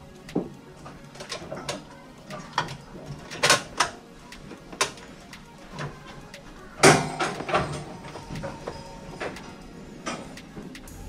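Thin plastic cable ties being threaded and pulled tight with short ratcheting zips, among irregular clicks and rattles of plastic parts being handled; one louder knock about seven seconds in.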